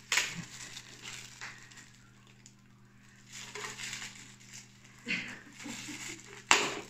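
Shiny red foil gift wrap crinkling and tearing as it is pulled open by hand, in scattered bursts, the loudest at the very start and again about six and a half seconds in.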